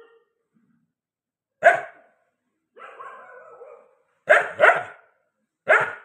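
A dog barking in short, sharp single barks: one, then a longer, quieter drawn-out call, then a quick pair and one more bark near the end.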